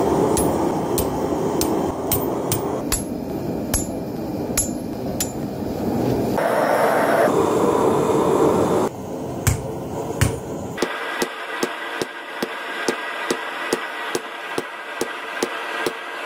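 Blacksmith's hand hammer striking red-hot steel on an anvil in a steady rhythm of about two to three blows a second, each with a short metallic ring. For roughly the first half a steady rushing noise runs under the blows.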